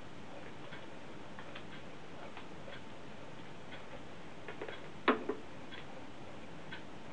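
Vinyl surface noise from a stylus tracking a 45 rpm single on a National Panasonic SL-18 turntable, with no music in the groove: a steady faint hiss with scattered light clicks and a sharper double pop about five seconds in.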